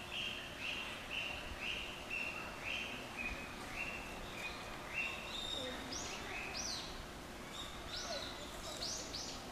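A bird calling in a steady series of short, high notes, about two a second; from about halfway the notes jump higher and each one sweeps downward. Steady outdoor background noise runs underneath.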